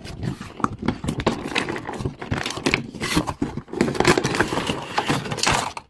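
Action-figure cardboard box being opened by hand: the flap is folded back and the packaging handled and rubbed, giving irregular scraping and crinkling rustles.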